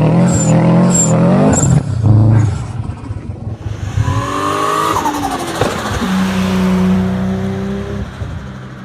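Turbocharged car engine revving, its pitch rising and falling quickly in the first couple of seconds. As the revs drop, a long hiss with a falling whine comes in as the turbo's boost is vented on throttle lift. Then the engine holds a steady, lower note.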